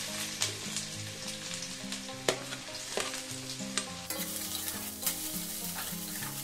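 Chopped onions sizzling as they drop into hot oil in a steel wok, with sharp knocks of a metal spoon and spatula against the pan. The sizzle grows louder about four seconds in as more onion goes in and is stirred.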